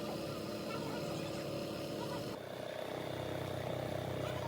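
A machine or engine running steadily with an even hum, changing pitch and character abruptly about halfway through.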